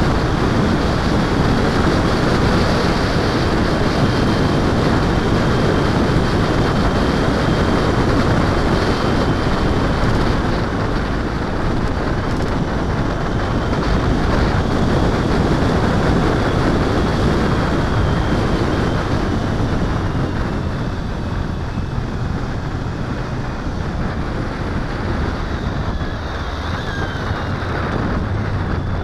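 Wind rushing hard over the microphone of a camera mounted on a moving motorcycle, with the motorcycle's engine and tyre noise underneath. The rush eases a little in the second half as the bike slows, and the engine's low hum is clearer near the end.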